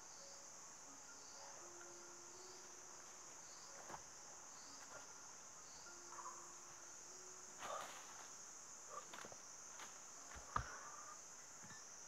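Steady, high-pitched drone of forest insects, with a few scattered rustles and knocks in dry leaf litter; the loudest is a sharp knock about ten and a half seconds in.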